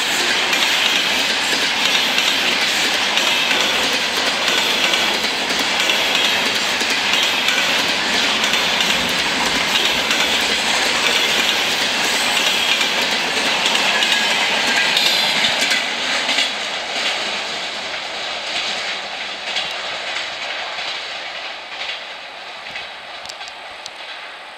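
Container freight train wagons rolling past, their wheels knocking rhythmically over the rail joints. The clatter fades away from about two-thirds of the way through.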